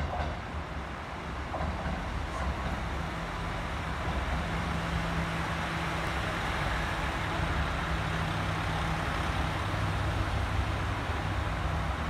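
Trains moving slowly through an elevated station: a red Kyudai Main Line diesel railcar and a white 885 series electric express. A steady rumble with a low hum grows gradually louder.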